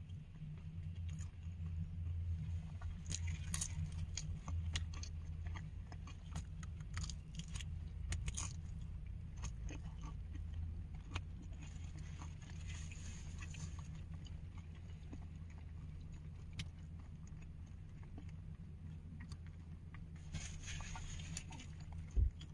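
A steady low hum inside a parked car's cabin, with scattered small clicks and crinkles of takeout packaging and a plastic fork being handled, and chewing while eating fish and chips.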